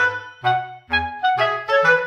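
Light instrumental background music: a bouncy melody of short notes changing several times a second over a plucked-sounding bass line.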